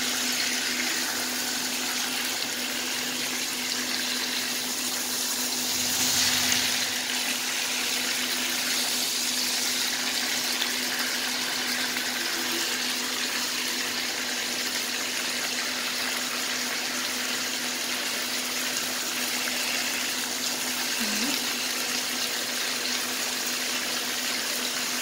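Chicken pieces frying in oil in a nonstick wok, a steady sizzle as they brown, swelling briefly about six seconds in. A faint steady low hum runs underneath.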